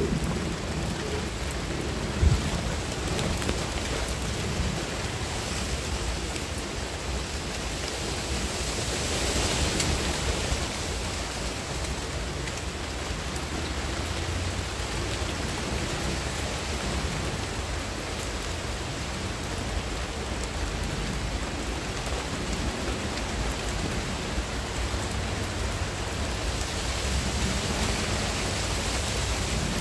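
Steady rain falling on garden foliage, swelling a little about eight to ten seconds in, with one sharp tap about two seconds in.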